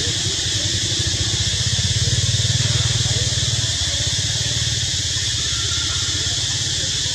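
A low, steady engine rumble with a fast even pulse, swelling for a couple of seconds near the middle, over a constant high hiss.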